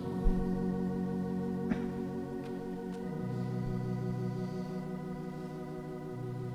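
Soft organ music: sustained chords held for a second or more, changing smoothly from one to the next. A brief knock sounds about a third of a second in, with a few faint clicks over the next few seconds.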